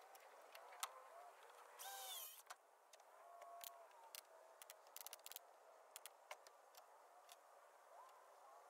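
Near silence: faint background with scattered faint ticks, a brief hiss about two seconds in, and faint wavering pitched sounds.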